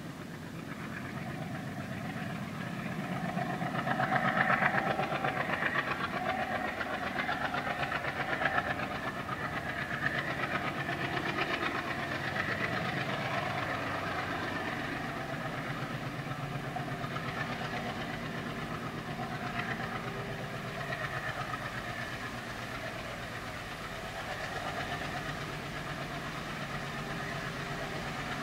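Twin WDG3A ALCO diesel locomotives running under load on an approaching container freight, their engines heard before they come into view as a steady drone that swells about four seconds in and then holds.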